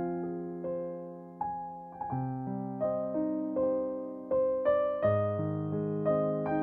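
Slow, gentle piano background music: single notes and soft chords struck about every half second, each left to ring and fade.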